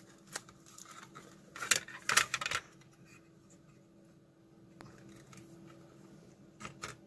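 Small hard clicks and clatter of a plastic power-bank case, circuit board and wires being handled and fitted together, loudest in a quick cluster about two seconds in, with two more clicks near the end. A faint steady hum runs underneath.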